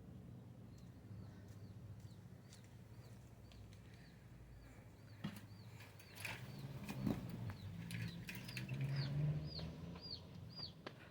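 A bird chirping over and over, short high chirps about three a second that grow louder toward the end, with a few knocks and a brief flutter in the middle.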